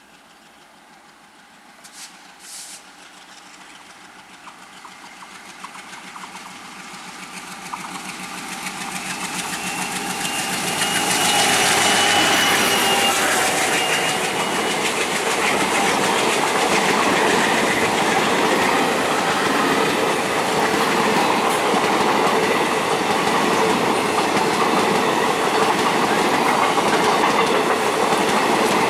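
Alco diesel locomotive hauling a passenger train grows steadily louder as it approaches and passes about eleven seconds in, with a thin high whine around the moment of passing. The coaches then rush by in a steady loud rumble with the clickety-clack of wheels over rail joints.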